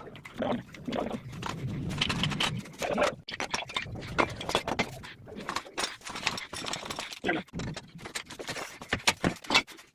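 Irregular metallic clinks and knocks of hand tools and loose parts as a Yamaha RX100 motorcycle is taken apart.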